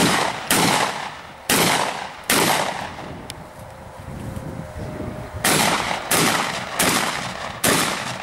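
Shotgun shots fired in quick succession. There are three shots in the first couple of seconds, a pause of about three seconds, then four more, each under a second apart, and each shot rings out briefly after the bang.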